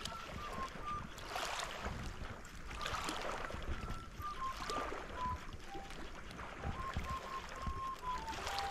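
Small waves lapping at a pebbly shoreline, with some wind noise. A faint melody of short held whistle-like notes, stepping up and down in pitch, runs over it.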